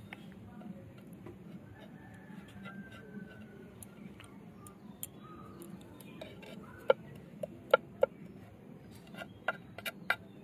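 Kitchen knife blade clicking and tapping against a terracotta plate as crumb-coated chicken cutlets are pressed and shaped. The sharp clicks come in two quick groups of about four, one a little past the middle and one near the end, over a steady low hum.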